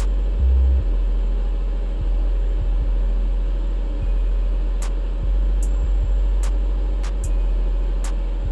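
60 W CO2 laser engraver running while it engraves powder coat: a steady, loud low hum with fainter steady tones above it and scattered short ticks.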